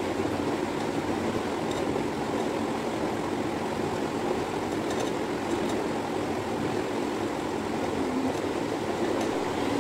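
Steady background noise, an even low rush with no pitch or rhythm.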